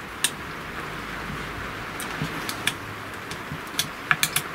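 Small sharp metallic clicks and taps of an Allen key and small bolts being handled while a spoilboard is fastened to a CNC router's bed: a few scattered clicks, then a quick cluster near the end, over a steady faint hiss.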